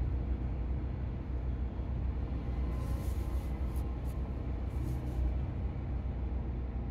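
Large engine running steadily, a deep even hum, with a few brief hisses around the middle.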